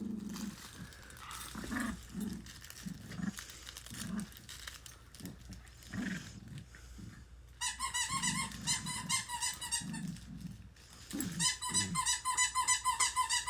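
Dogs playing: low growling grunts come every half second or so. About halfway in they give way to a fast, even run of high squeaks, several a second, which pause briefly and then start again.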